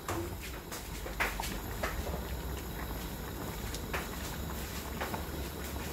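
A large pot of stew peas simmering on a gas hob: a steady low rumble with a few light clicks and pops scattered through it.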